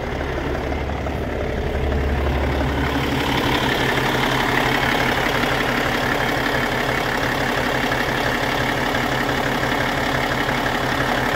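Heavy diesel truck engine running steadily, a Cummins ISX15 inline-six in a Peterbilt 367; the sound gets a little louder and fuller about two seconds in.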